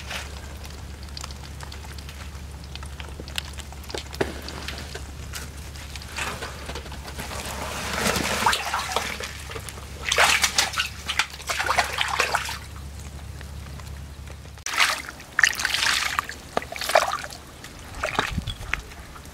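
Water sloshing and splashing in irregular bursts, over a low steady hum that cuts off about fifteen seconds in.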